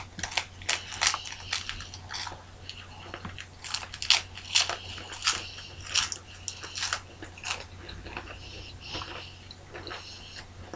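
Crackers being bitten and chewed by two people with mouths already stuffed with crackers: a run of short, sharp crunches that thins out after about seven seconds.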